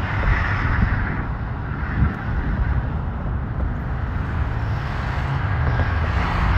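Steady road traffic, a continuous rumble of cars and tyre noise passing on and around a busy city bridge at rush hour, with a brief knock about two seconds in.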